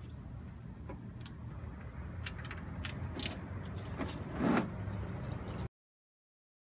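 Oil drain plug being unscrewed by hand from the oil pan, with small metallic clicks, then used engine oil streaming into a plastic catch pan and a louder clatter about four and a half seconds in. The sound cuts off abruptly near the end.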